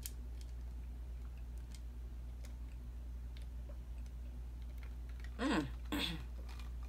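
Person drinking soda from a glass: faint small gulping and swallowing clicks over a steady low hum, then two short falling-pitch satisfied "ahh" sounds about five and a half seconds in as the glass comes down.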